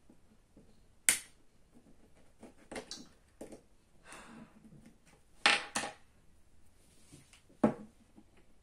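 Sharp clicks and snaps of prying tools working at an iPod Video's case: a loud click about a second in, two in quick succession past the middle and one near the end, with softer ticks and scraping between.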